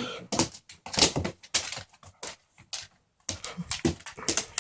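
Young pit bull scuffling about with a rope under its collar: a run of irregular clicks and scrapes, with a short pause about three seconds in.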